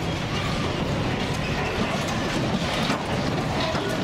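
Preserved Shinkansen train cars rattling and clanking as they are shaken by the earthquake: a dense run of short metallic clicks and knocks over a steady noisy background.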